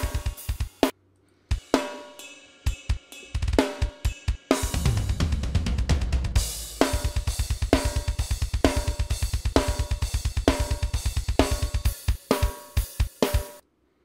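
Soloed raw, unmixed drum multitracks of a metal recording playing back: a tight drum kit with snare hits, cymbals and fast double-bass kick runs, the densest run in the middle with a cymbal crash just before it. The playback breaks off briefly twice, about a second in and near the end.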